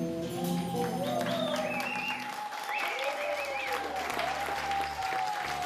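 Audience applauding, with voices calling out and whistles over the clapping.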